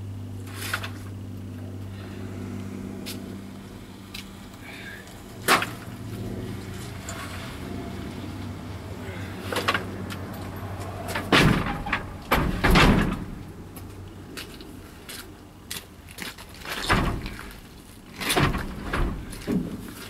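Wooden pallet boards being tossed onto a loaded pickup bed: a series of hollow knocks and clattering thuds, heaviest about halfway through and again near the end. Under the first half runs a low steady hum from the idling truck, which fades out once the loud knocks begin.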